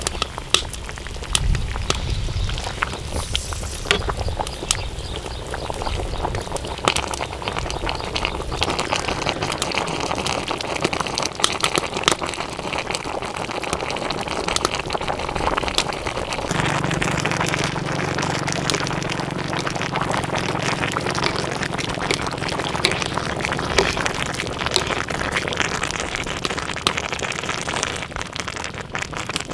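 Fish broth boiling in an aluminium pan over a wood fire: a steady bubbling with a dense patter of small pops. A low rumble joins about halfway through.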